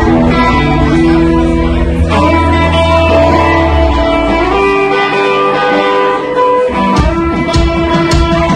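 Live blues band playing: electric guitar over Hammond-style keyboard, with the drums and cymbals coming in about seven seconds in after the low end briefly drops away.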